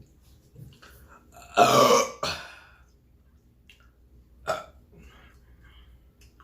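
Loud burping: one long burp about a second and a half in, then a shorter one about three seconds later.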